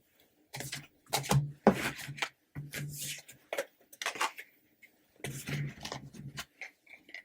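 Soft handling noises of stiff tarot cards being slid and set down, in short clusters of rustles and light taps, with a faint low hum under some of them.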